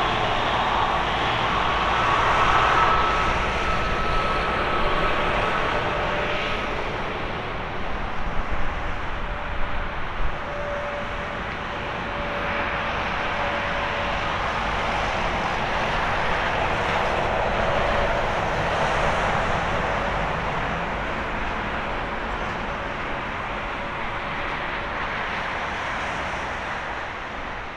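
An Airbus A320neo's Pratt & Whitney PW1127G geared turbofans running at taxi thrust as the airliner rolls slowly past, a steady jet rush with a high whine that fades a few seconds in. A few brief crackles come about nine seconds in.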